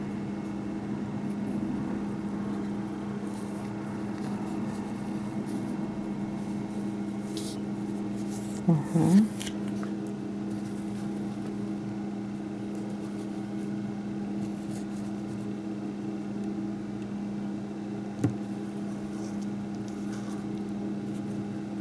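A steady low hum made of a few held tones. A short vocal sound comes about nine seconds in, and a single light tap follows near the end.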